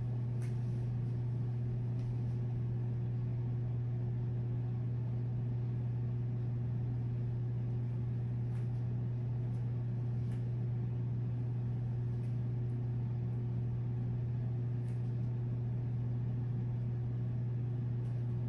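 A steady low hum with a faint hiss over it, unchanging throughout: background room noise. A few faint ticks are heard now and then.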